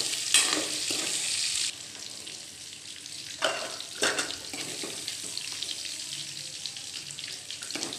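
Soya chunks frying in hot oil in a kadhai, sizzling, while a metal spoon scrapes the pan lifting them out. The sizzle is loud at first and drops suddenly a little under two seconds in. Two sharp scrapes come near the middle.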